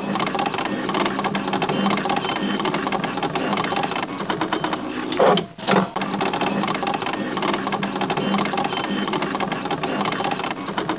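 Fast, steady mechanical clatter of rapid clicks, briefly interrupted about five seconds in by a couple of louder knocks before it carries on.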